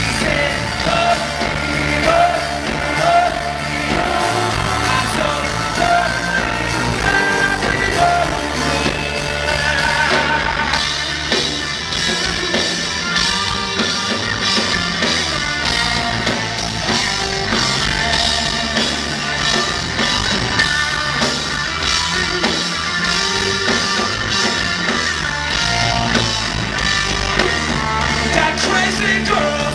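Live band playing a song with a lead singer, electric guitar, keyboards and drums, heard from among the audience through a small camcorder's microphone.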